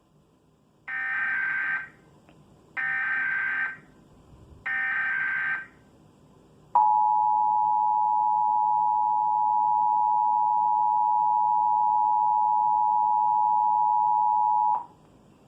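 Emergency Alert System test: three short bursts of SAME digital header data, each about a second long, then the EAS two-tone attention signal, two steady tones sounded together for about eight seconds before cutting off.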